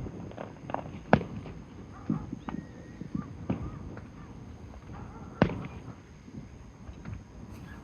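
Fireworks shells bursting: two sharp bangs, about a second in and again about four seconds later, with smaller pops and crackles between them.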